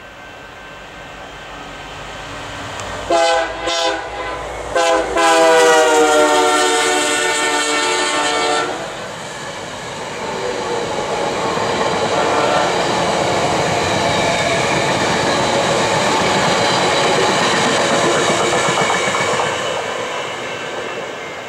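VIA Rail's 'The Canadian' passenger train sounding its horn in two or three short blasts and then one long blast of about three and a half seconds, the pitch sagging slightly as the locomotive passes. The horn is followed by the steady rumble and wheel clatter of the passenger cars going by, which fades near the end.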